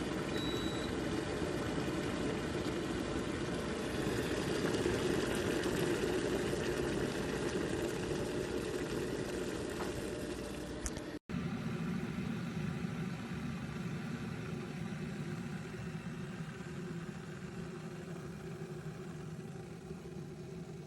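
Electric kettle heating water: a steady rumbling hiss. An abrupt cut about eleven seconds in gives way to a quieter, lower rumble.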